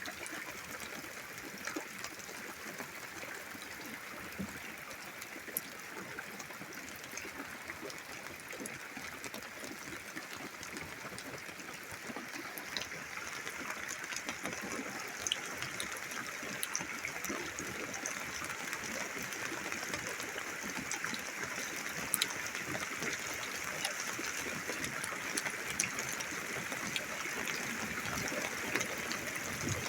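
Rain falling steadily, with scattered sharp ticks of drops striking nearby, growing slowly heavier through the second half.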